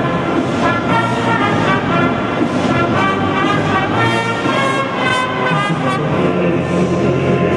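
Military brass band of trombones, trumpets and tuba playing a tune.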